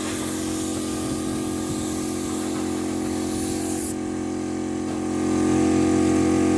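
Steady hiss of a paint spray gun over the steady hum of its machine. About four seconds in the sound changes abruptly: the hiss thins and the hum grows louder.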